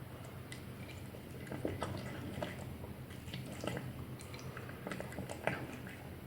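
A cat eating, with faint, irregular wet chewing clicks.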